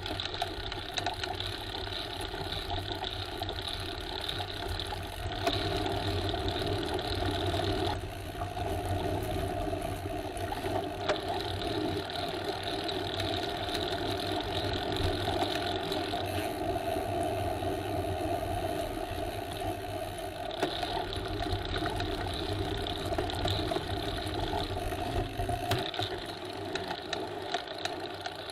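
Bicycle being ridden along a path: steady rolling noise of tyres and drivetrain, with a low hum underneath.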